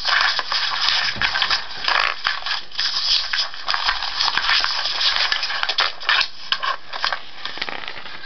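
Printed paper manual pages rustling and crinkling as they are handled and turned, a continuous crackly scraping with many small sharp crackles.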